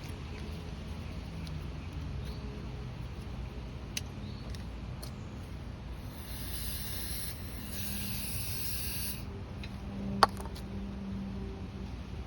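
A spray hissing for about three seconds on the carburetor parts being cleaned, with a few light clicks of small parts handled before it. About a second after the spray, a single sharp click is the loudest sound.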